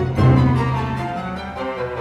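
Orchestral ballet music led by bowed strings: slow sustained notes over a low string line that fades about a second in.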